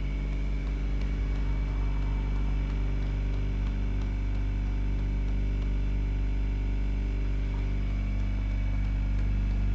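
A steady low mechanical hum with a deep drone, unchanging in pitch and level.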